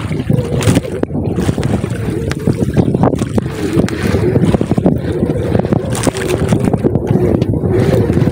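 Wind buffeting the microphone over a steady engine hum aboard a wooden outrigger fishing boat, with scattered knocks and rustles as a gill net is hauled in by hand over the gunwale.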